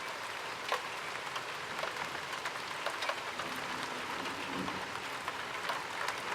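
Rain falling steadily, with scattered drops ticking sharply on nearby hard surfaces.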